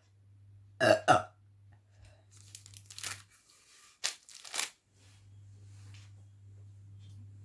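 A woman burping after gulping carbonated cola: two loud, short burps back to back about a second in, then softer, breathier bursts around three seconds and twice more just after four seconds.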